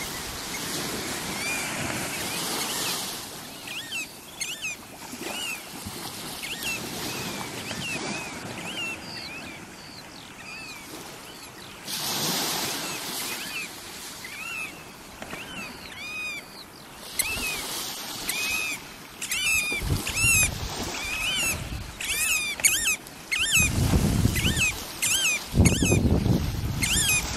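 Variable oystercatchers piping: short, sharp calls that rise and fall in pitch, repeated every second or so, coming faster and overlapping in the last ten seconds, over small waves washing onto the beach. Two low rumbles near the end.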